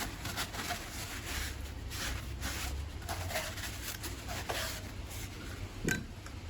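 Irregular clicks and rustles of parts and tools being handled, with one sharper click near the end.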